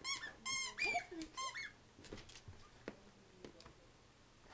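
Squeaky plush dog toy squeaking about four times in quick succession as a dog bites and squeezes it, then a few light clicks and taps on the hard floor.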